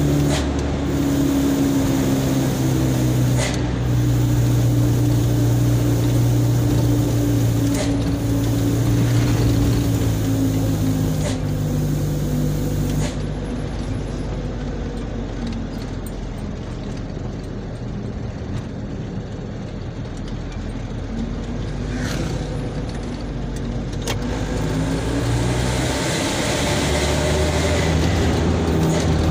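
A box truck's engine heard from inside the cab while driving. The engine drops in pitch and level about halfway through and climbs again near the end. A few sharp knocks and rattles sound from the cab along the way.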